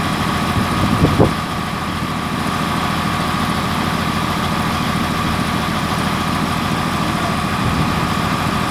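Diesel engine of a truck-mounted crane idling steadily, with a steady high whine over it and a brief louder knock about a second in.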